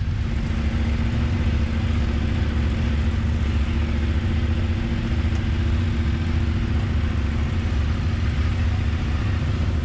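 Adventure motorcycle engines idling steadily, a constant low drone that holds one even pitch throughout.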